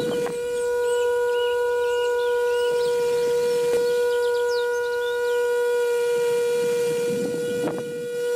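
Small electric motor of a miniature winnowing fan running at a steady speed with a high, even whine. A short rustle of grain near the end.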